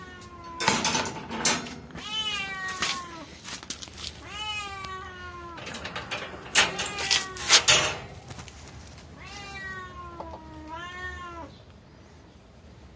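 A domestic cat meowing repeatedly: about four drawn-out meows, the last one the longest. Between them come sharp clicks and rattles from the latch of a wire pet pen being worked, loudest about halfway through.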